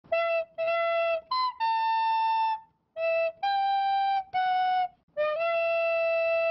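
Intro music: a solo flute playing a short melody of separate notes in a few phrases, ending on one long held note.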